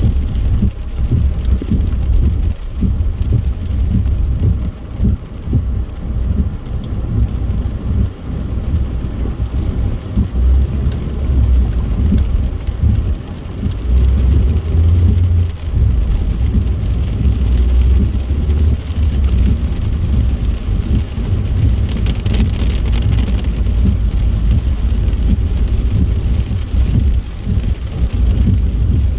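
A car driving on a wet motorway in heavy rain: a steady, deep rumble of tyre and road noise under the hiss of rain and spray.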